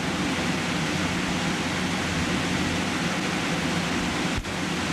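Steady hiss with a low hum underneath, broken by a brief dropout about four and a half seconds in.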